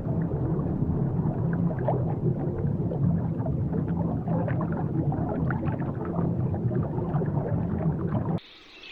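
Underwater ambience over a coral reef: a steady low rumble with dense crackling clicks. Near the end it cuts off abruptly to a much quieter ambience with faint high chirping.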